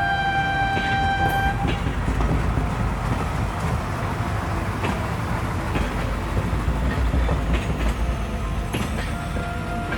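A train horn sounds once for about a second and a half, then a train runs by with a steady rumble and clacking wheels.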